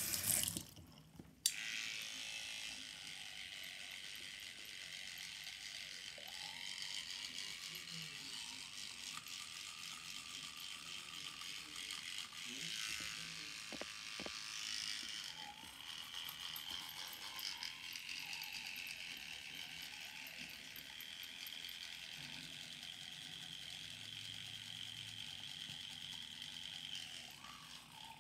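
Battery-powered kids' toothbrush clicks on about a second and a half in, then buzzes steadily while brushing teeth.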